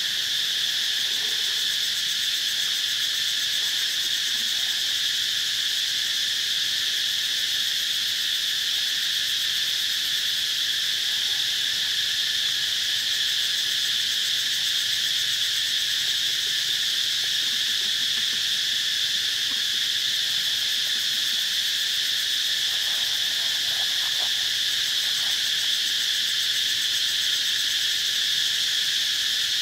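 A steady, high-pitched chorus of insects that holds at an even level throughout.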